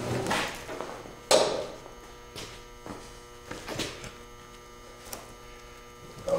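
Rotted wooden bed boards being dragged out of a pickup's stepside bed: a sharp knock about a second in, then scattered scrapes and bumps, over a steady electrical hum.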